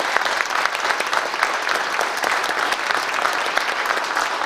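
Audience applauding: many hands clapping in a dense, steady spread that keeps up throughout.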